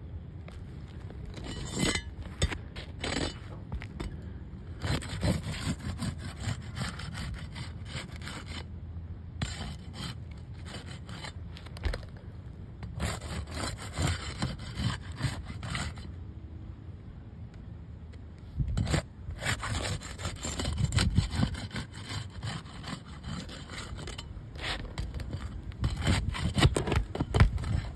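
Asphalt roof shingles scraping and rubbing as a hand lifts and works a shingle tab loose, in irregular bouts of gritty rasping with short pauses, loudest near the end.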